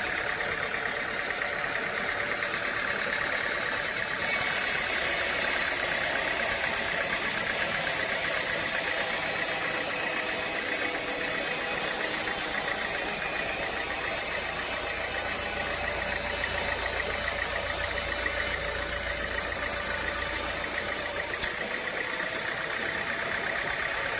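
Engine-driven sawmill machinery running steadily. A high hiss comes in suddenly about four seconds in and cuts off suddenly near the end.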